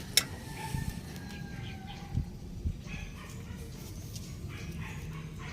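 Chickens calling: a long, slowly falling call in the first two seconds, then short clucks, over a steady low background hum. A sharp click just after the start is the loudest sound, and two dull knocks come around two seconds in.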